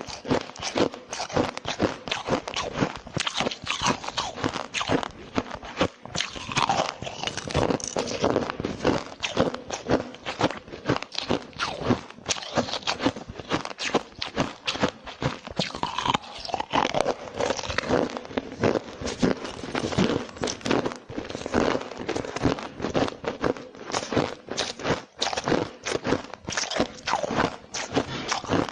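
Continuous crunching and biting of hard ice: a rapid, irregular stream of cracks and crunches as the ice is chewed close to the microphone.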